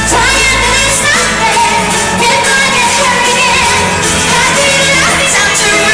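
Live pop song performance: a female lead singer sings the chorus over a full band with bass and drums.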